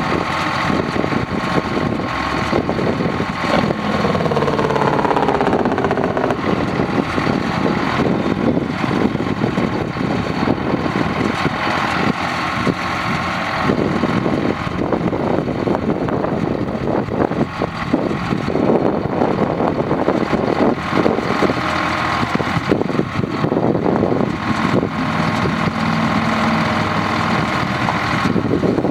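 1977 Chevrolet C70 well-drilling truck's engine running steadily, its pitch falling a few seconds in.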